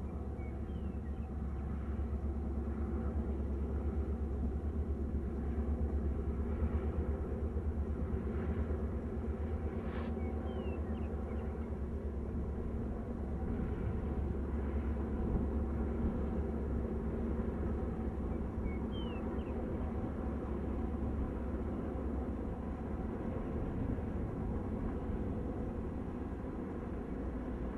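Diesel locomotives of a BN freight train working steadily around a curve: a continuous low engine rumble with a steady hum, heard from a distance. A few short high chirps sound over it, and there is one sharp click about ten seconds in.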